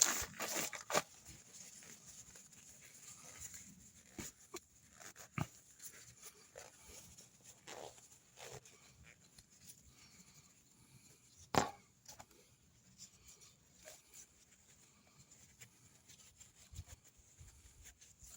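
Scattered light clicks and knocks of small parts and tools being handled while oil-change parts are cleaned, with one sharper knock about two-thirds of the way through.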